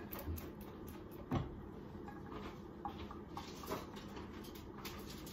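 Light kitchen handling sounds: a few scattered knocks and clicks of pans and utensils being moved, the clearest about one and a half seconds in.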